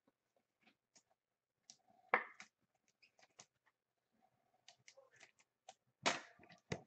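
Trading cards and their plastic holders and packaging being handled on a table: scattered light clicks and rustles, with a sharp snap about two seconds in and two more near the end.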